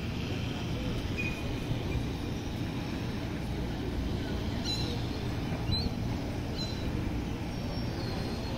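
Steady low outdoor rumble, with a few faint short high chirps about five, six and six and a half seconds in.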